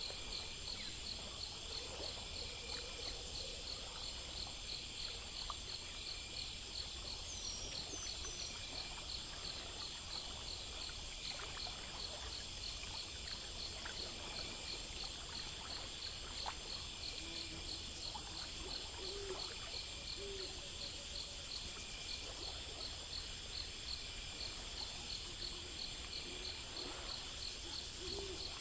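Night nature ambience: insects trilling and chirping in a steady, evenly pulsed rhythm over the soft rush of a stream, with a few short low hoots in the second half.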